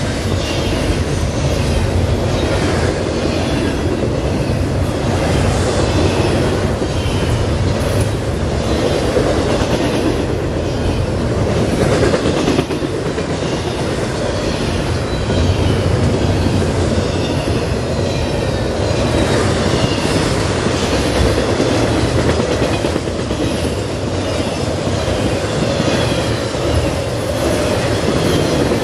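CSX intermodal freight train's double-stack container cars and trailer flatcars rolling past: a steady, loud rumble with the rhythmic clatter of wheels on the rails.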